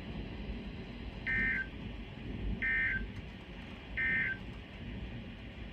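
EAS/SAME End-of-Message signal from a NOAA Weather Radio broadcast: three short bursts of digital data tones, each about a third of a second, roughly a second apart, marking the end of the warning. Steady radio hiss underneath.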